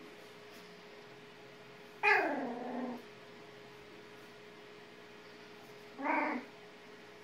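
A puppy yelping during a play fight: a loud cry about two seconds in that falls in pitch over about a second, then a shorter cry a few seconds later.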